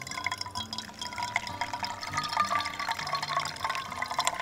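Hot water poured in a thin, steady stream from a collapsible camp pot into a paper drip-bag coffee filter, trickling and splashing onto the grounds.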